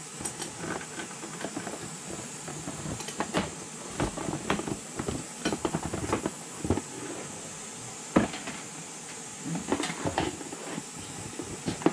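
Long clear plastic hose extensions for a cavity-wax spray gun being pulled from a cardboard box and uncoiled, with irregular clicks, knocks and rustling as the tubing and its fittings are handled, over a faint steady hiss.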